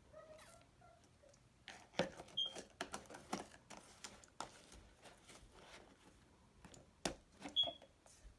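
Clear slime being handled, giving faint scattered sticky clicks and pops, about six of them, one or two with a short high squeak.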